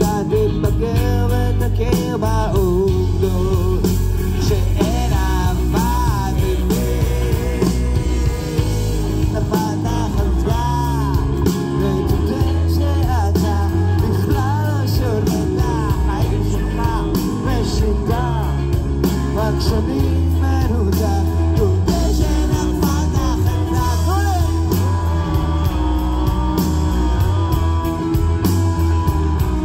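Rock band playing live: electric guitars, bass and drums, loud and steady, with a melody line that bends up and down over a heavy low end.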